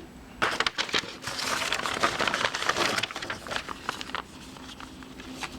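Packaging crinkling and rustling as items are handled and unpacked, with many small crackles, dying down to softer handling noise after about three and a half seconds.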